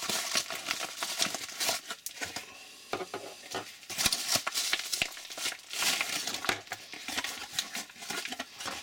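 Crumpled paper packaging crinkling and rustling as a USB power adapter is pulled out of it by hand, with a few sharp clicks along the way.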